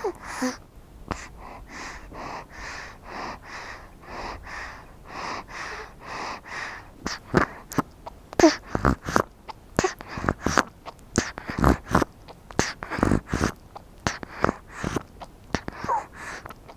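Baby breastfeeding: soft rhythmic sucking and breathing about twice a second, then wet clicks and smacks from the mouth at the breast, with a few tiny squeaks.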